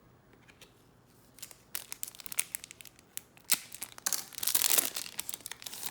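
Trading card pack wrapper being crinkled and torn open: scattered crackles, then one longer, louder tear about four seconds in.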